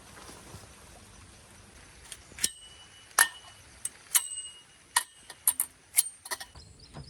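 Camp cookware and utensils clinking together: a run of about ten sharp knocks in the second half, several with a brief metallic ring.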